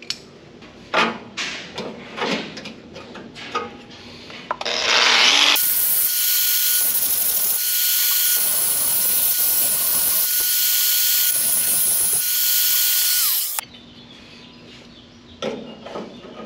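A few light metal clanks and knocks, then an angle grinder runs for about eight seconds grinding sheet steel. Its steady whine cuts out near the end and drops in pitch as the disc winds down.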